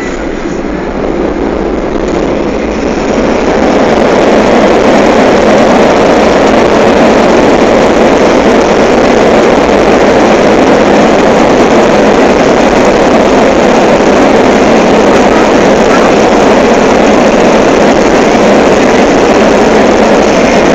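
Boeing 737's jet engines in reverse thrust on the landing rollout: a loud rushing roar that swells over the first few seconds and then holds steady.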